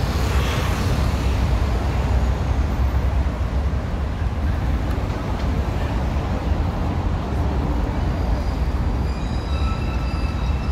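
City street traffic: a steady low rumble of passing vehicles on a busy avenue, with a brief hiss in the first second and a faint high-pitched squeal near the end.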